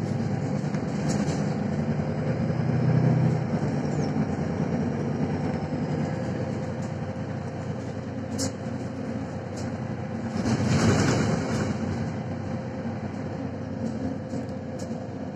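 Cabin sound of a Mercedes-Benz Citaro C1 Facelift city bus under way: its six-cylinder diesel engine running with road noise. The engine is loudest for the first three seconds and then eases. Scattered light clicks and rattles come from the interior, and a louder rushing swell rises and falls about ten seconds in.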